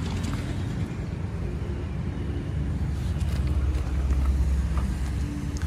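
A vehicle engine running, a low steady rumble with a faint hum above it, growing louder about three and a half seconds in.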